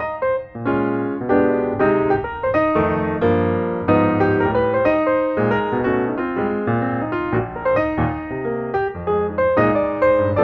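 Background piano music: a steady stream of piano notes and chords.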